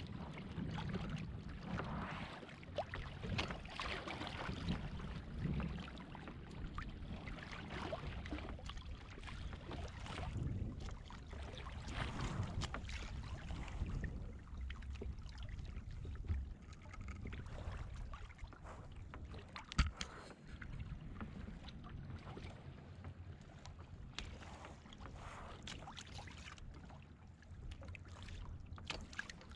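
Wind and sea water sloshing around a fishing kayak on open ocean, rising and easing, with scattered small knocks and one sharp click about two-thirds of the way through.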